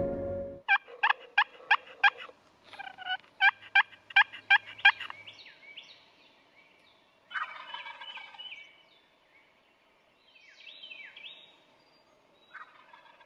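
Turkey yelping: two runs of loud, evenly spaced yelps, about three a second, then a fainter rattling gobble about seven seconds in. A few thinner, falling calls follow near the end.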